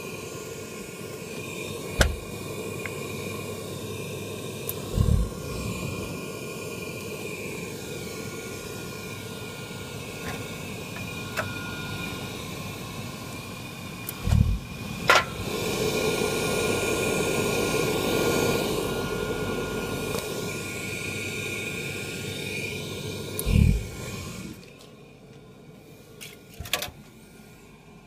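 Riello boiler burner's fan motor running with a steady whine, swelling louder for several seconds, then cutting out suddenly after about 24 seconds. The boiler will not fire. A few dull knocks and a couple of clicks stand out over it.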